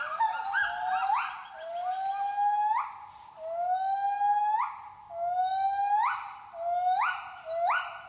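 Gibbon singing: a series of long rising whoops, about one a second, each ending in a sharp upward sweep, quickening into rapid short notes near the end.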